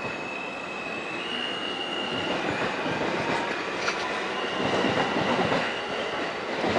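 R160 Siemens subway train leaving the station and gathering speed past the platform: a steady rumble of wheels on rail that grows louder, with a thin high whine that steps up in pitch about a second in.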